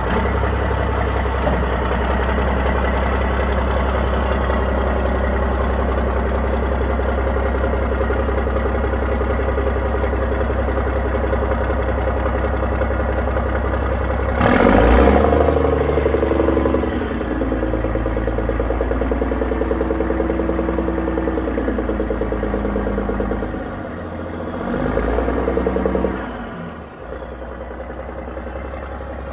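2003 Mack RD688S dump truck's diesel engine running steadily while the hydraulic hoist raises the dump bed. About halfway through the engine note jumps suddenly louder and changes for a few seconds, then settles; it swells again near the end and drops back sharply.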